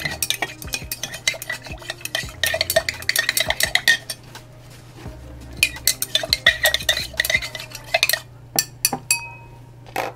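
Stirring in a glass beaker of a watery mixture: rapid ringing clinks of the stirrer against the glass. They come in two spells with a pause of about a second and a half between, then a few last taps near the end.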